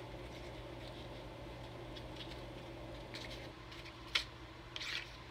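Cosmetic packaging handled by hand: a few soft clicks, one sharp click about four seconds in and a short crinkle of plastic as a liquid eyeliner comes out of its box. A steady low hum runs underneath.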